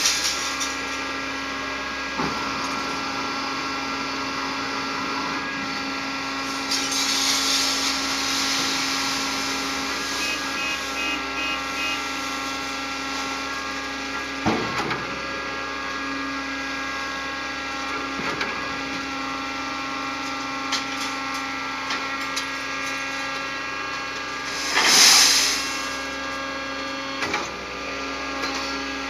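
LEOPARD N scrap baler press running with a steady machine hum made of several fixed tones, broken by a few sharp knocks and two louder hissing swells, one about a quarter of the way in and one near the end.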